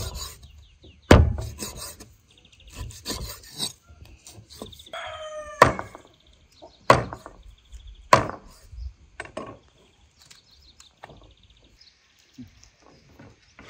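Large chef's knife chopping raw meat on a wooden cutting board: a run of sharp chops at uneven intervals, the heaviest about a second in and around six to eight seconds, thinning out after about ten seconds. A barnyard bird calls once, briefly, about five seconds in.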